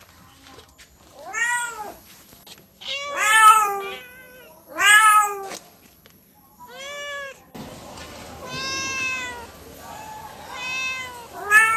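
Domestic cat meowing: about seven separate meows, each rising then falling in pitch. A little past halfway through, a steady hiss comes in behind the meows.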